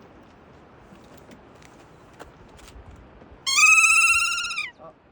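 Kea calling once: a single loud, drawn-out shriek with a slight waver, held level and then dropping in pitch at the end with a short lower tail, about three and a half seconds in.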